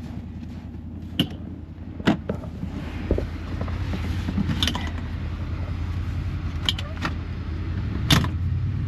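Side-by-side utility vehicle engine running steadily, with about seven sharp knocks and rattles scattered through it.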